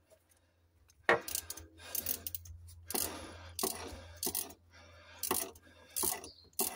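Small ratchet handle with a 6 mm socket clicking and rattling in irregular spurts, tightening a Jubilee clip (worm-drive hose clamp) on a fuel line.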